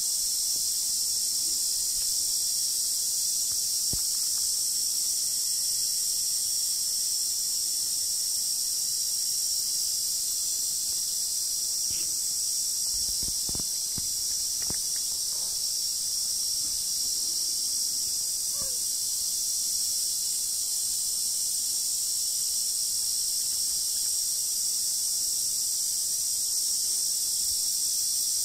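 Dense, steady chorus of insects at dusk, a continuous high shrill buzz. A few faint knocks come about halfway through, when the camera is moved.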